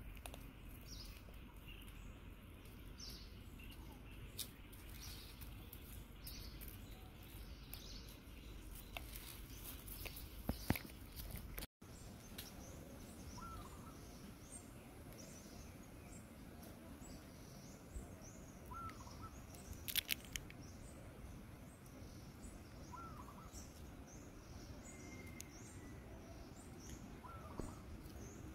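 Faint outdoor background with many short, high chirps repeating throughout, a few lower-pitched call notes, and occasional sharp clicks. The sound drops out for an instant about twelve seconds in.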